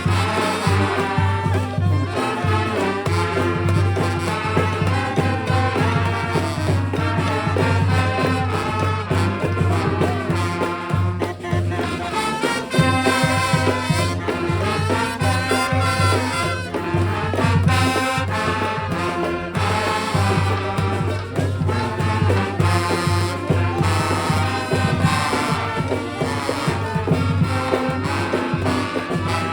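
A brass band playing a tune live, horns over a steady bass line with percussion hits throughout.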